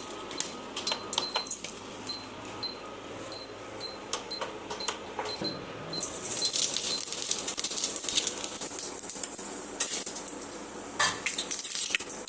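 Kitchen utensils and dishes clinking and knocking during food preparation, with a steady hiss setting in about halfway through.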